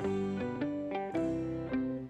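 Background music: a light melody of plucked notes.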